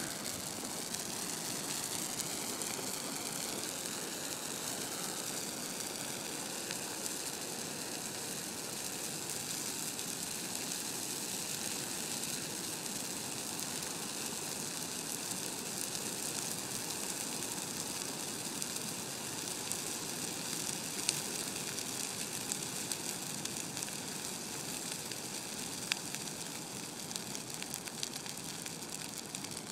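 A Christmas tree burning in a fire pit: a steady hiss of flames with fine crackling of the needles and branches, and a few sharper pops in the second half.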